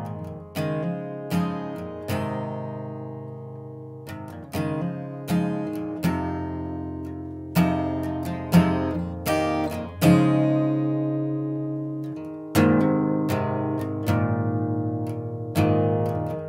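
Background music: acoustic guitar playing plucked notes and chords, each note struck sharply and ringing away.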